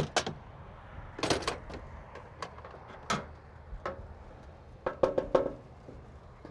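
Sheet-metal knocks and clanks as the red steel chute of a grain-loss cleaner is handled and chaff is tipped from it into a steel bucket. The knocks come one or two at a time, with a quick cluster of clanks about five seconds in.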